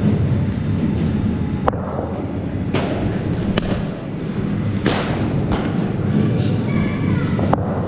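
Cricket balls being struck and bowled in an indoor net: about half a dozen sharp knocks, two of them loudest, over a steady low rumble.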